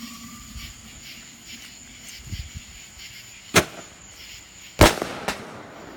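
Small firework set off inside a plastic sports-drink bottle, going off with two sharp bangs a little over a second apart, the second the loudest, then a lighter pop. Crickets chirp steadily in the background.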